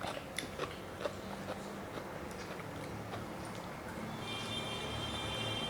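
Faint chewing and mouth sounds of someone eating rice and vegetable curry, with a few small sharp clicks in the first second and a half. About four seconds in, a steady high-pitched tone made of several pitches starts and holds.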